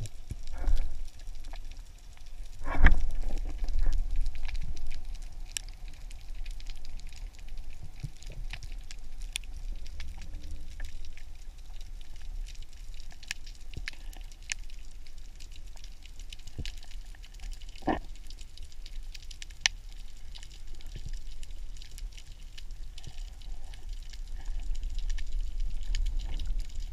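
Underwater ambience recorded with the camera under water: a continuous crackle of fine clicks over a low rumble of moving water. A louder knock stands out about three seconds in and another about eighteen seconds in.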